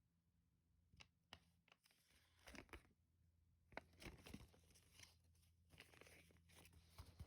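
Faint crinkling and tearing of handled packaging, with a few sharp clicks near the start, then rustling that grows busier from about halfway in.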